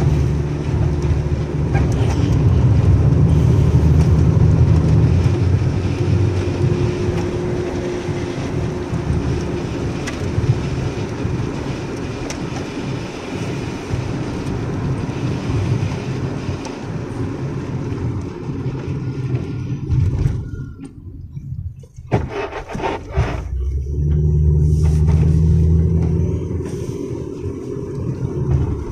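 Car driving on a wet road, heard from inside the cabin: a steady low rumble of engine and tyre noise that swells louder twice and dips away sharply for a couple of seconds about twenty seconds in.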